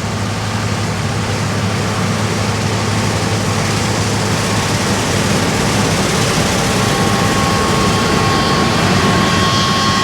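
Combine harvester working, its engine and Seed Terminator chaff mill running as a steady mechanical din that grows slowly louder. A thin high whine strengthens near the end.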